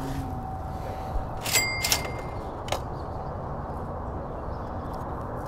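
Two sharp clicks about half a second apart, the first with a brief high metallic ring, then a fainter click, over steady outdoor background noise.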